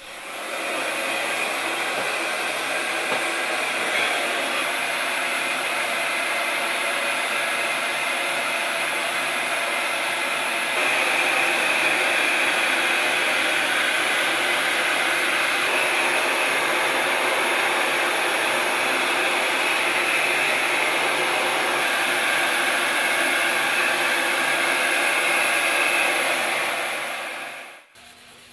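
Handheld electric heat gun blowing steadily, with a low motor hum under the rush of air. It gets a little louder about a third of the way through and cuts off just before the end.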